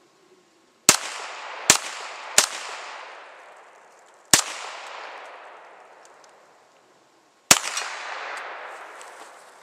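Ruger Mark III Hunter .22 LR pistol firing five shots: three in quick succession, a pause, one more, then a last shot near the end. Each sharp crack is followed by a long echo that dies away over a second or two.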